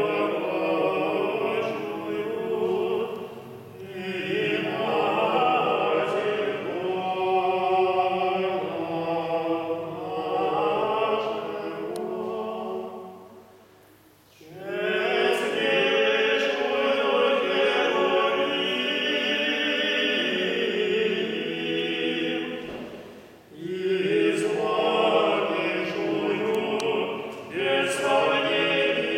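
Choir of Russian Orthodox monks singing unaccompanied liturgical chant, in long phrases with brief pauses about 4, 14 and 23 seconds in.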